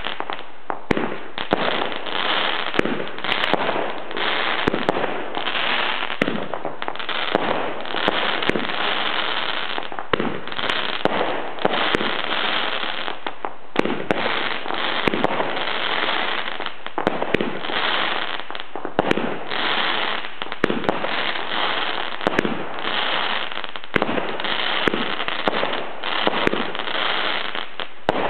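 Fireworks International 'Banshees Juicy Plums' multi-shot firework firing continuously: sharp pops and bursts every second or two over a steady hiss and crackle.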